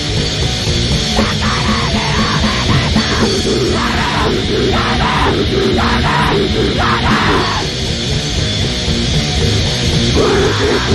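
Loud grindcore music: dense distorted guitars and drums with bursts of harsh shouted vocals.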